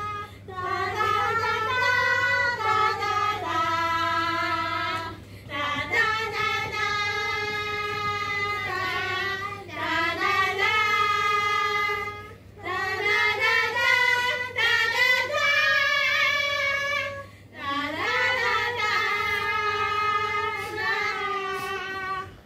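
A woman's high voice singing long held notes unaccompanied, in phrases of several seconds with short breaths between them.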